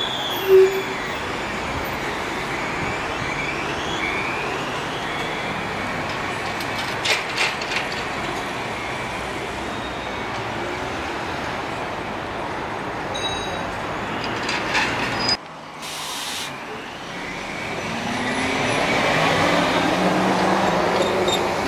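Trolleybus running, its electric traction motor whining in pitch glides that rise and fall. A few clicks come about seven seconds in. The sound cuts off abruptly about fifteen seconds in, then a whine climbs and grows louder toward the end as the vehicle picks up speed.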